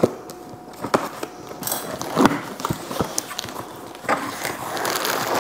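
A cardboard shipping box being cut and opened by hand, with several sharp taps and knocks as the scissors and flaps are handled, then a plastic bag of frozen vegetables rustling inside from about four seconds in.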